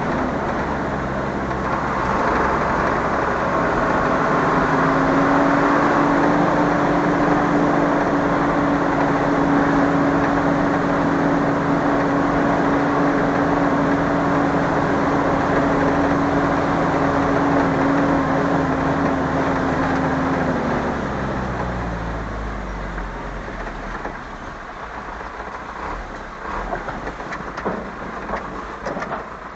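Car engine running steadily while driving, heard from inside the cabin. About twenty seconds in, the engine note drops and the sound quietens as the car slows. A few faint knocks follow near the end.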